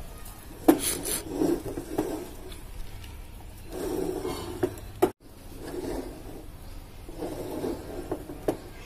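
Wire-mesh spider strainer scraping against the rim and sides of a metal pot as scoops of parboiled basmati rice are tipped out, in four or five spells. There is a sharp knock of metal on metal about a second in.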